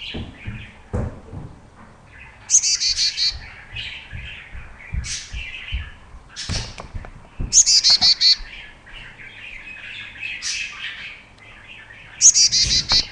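Young chickadee calling: three bouts of rapid, high-pitched chirps about five seconds apart, each lasting about a second, with softer single chirps in between.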